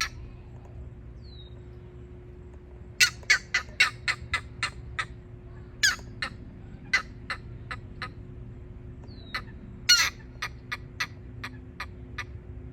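A bird calling in three bursts, each a loud sharp note followed by a run of quicker, fading repeated notes.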